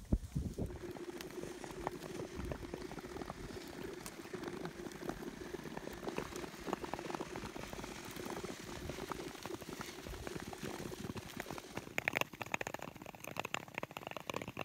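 Skate blades gliding and scraping over clear black lake ice, giving a steady hum under a dense crackle of small scratches. Near the end the scraping turns sharper and brighter.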